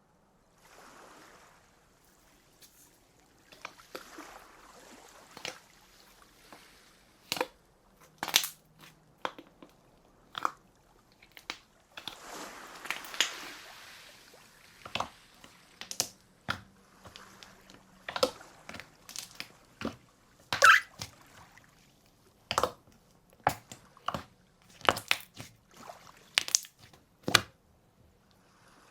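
Crunchy slime being squeezed and pressed by hand: irregular sharp crackles and pops, with softer wet squishing between them.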